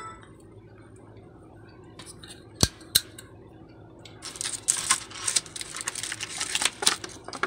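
Two sharp clicks a moment apart, then from about four seconds in a busy run of small clicks and rattles: hands handling a small plastic nano USB wireless adapter at the laptop.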